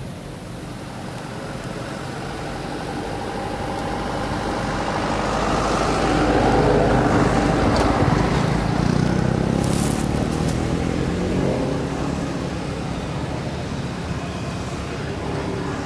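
A motor vehicle passing by: its engine and tyre noise swell to a peak about halfway through and then fade away.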